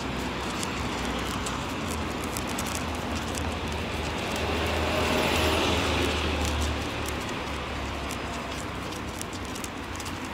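Street traffic: a passing vehicle's rumble swells to a peak about halfway through and fades, over steady outdoor noise with scattered light clicks.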